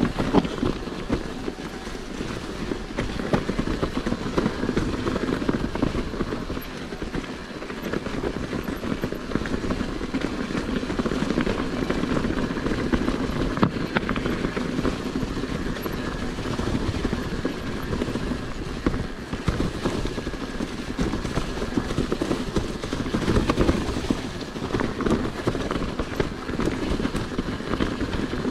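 Mountain bike riding over rough trail: a steady rumble from the tyres with constant clatter and rattling from the bike.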